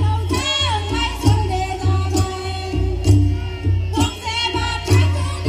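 Bodo Bwisagu folk music played loudly for dancing: a heavy drum beat with clinking percussion strokes and a melody line gliding over it.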